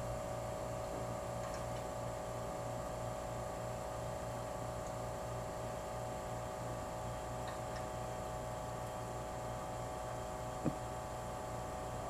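Hermetic compressor of a General Electric Monitor Top refrigerator running with a steady hum and a slight regular throb, working under load at about 175 PSI on the high side. A single short knock about ten and a half seconds in.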